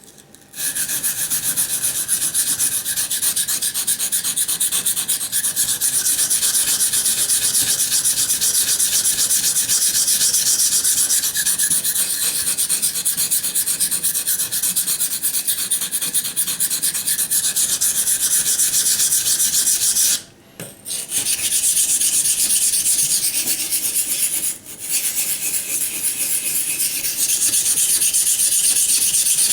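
A SOG Flash 2 knife's AUS-8 steel blade is stroked back and forth on a Japanese waterstone, making a continuous scraping rasp as the chipped edge is ground away. The scraping stops for about a second roughly two-thirds of the way through, then drops out again for a moment a few seconds later.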